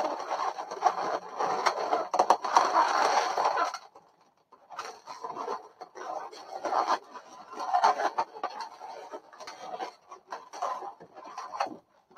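Inflated latex modelling balloons rubbing and squeaking against each other as they are twisted and woven together. A dense stretch for the first few seconds, a brief pause about four seconds in, then shorter bouts.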